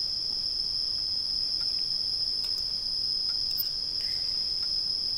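A steady, unbroken high-pitched chorus of night insects, like crickets, with a few faint clicks.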